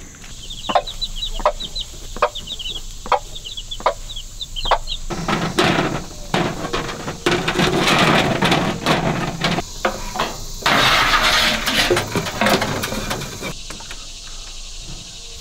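Footsteps on dry forest litter, about one step a second, with short high chirps. Then loud rustling and scraping for most of the rest, as electrical wire is fed and pushed up over the edge of a trailer roof.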